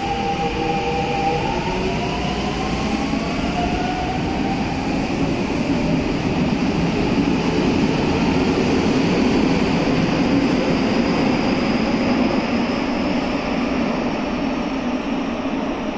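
Kobe Municipal Subway 3000 series train pulling out of an underground station. The traction motor whine rises in pitch as it accelerates, and wheel and rail rumble swells as the cars pass, then fades a little as the train goes into the tunnel near the end.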